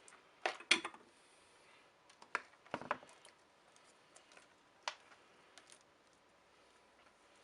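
Light clicks and knocks of tools and small parts handled on a workbench during soldering, in small clusters about half a second in, near three seconds and near five seconds.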